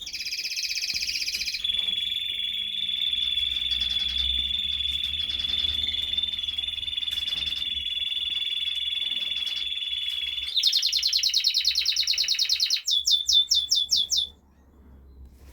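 Raza canary singing one long song: rolling trills, then a steady high trill held for about eight seconds, then faster trills and a string of sharp separate notes before the song stops about a second before the end.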